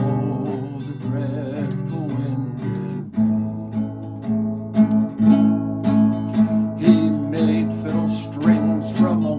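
Acoustic guitar strumming an instrumental break in a folk ballad, with a wavering melody line over it at first and evenly paced plucked strokes in the second half.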